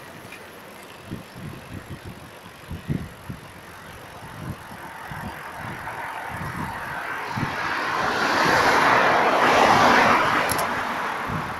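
Wind buffeting a handheld smartphone microphone on a moving bicycle, in irregular low thumps. Road traffic noise swells up through the second half as a vehicle passes close, peaks about nine to ten seconds in, then fades.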